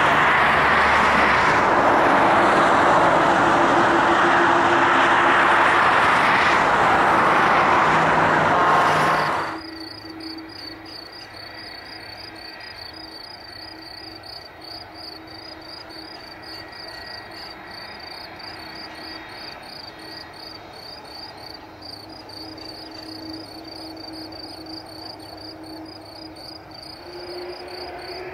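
Loud, steady roar of an Airbus A330's jet engines on its landing roll, cutting off sharply about nine seconds in. Then the quieter hum of a Turkish Airlines Airbus A330-203's GE CF6-80E1 engines as it taxis, with insects chirping in fast, even pulses; near the end the engine tone starts to rise.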